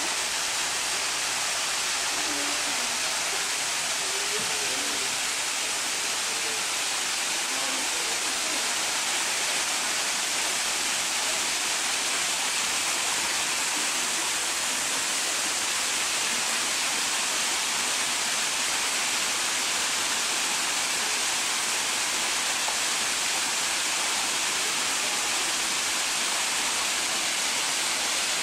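Water cascading down a stepped stone garden waterfall into a pond: a steady, even rush of splashing water that does not change.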